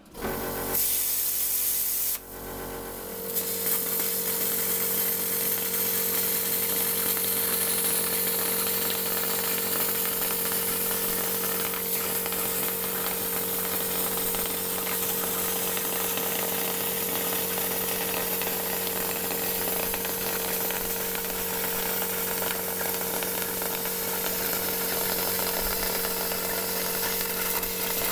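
Telwin plasma cutter with built-in compressor, fitted with a replacement Trafimet S45-style torch, cutting sheet metal. A short hiss near the start, then a long, even hiss of the arc and air, with a steady compressor hum underneath.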